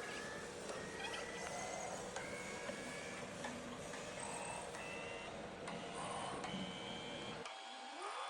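Machine running with a noisy background and short whining tones that change pitch in steps. The low rumble drops out suddenly near the end.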